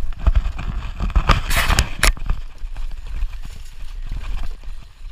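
Mountain bike rattling and clattering as it rides over a bumpy, rutted dirt trail, with irregular knocks over a steady low rumble. A burst of sharper clanks comes between about one and two seconds in.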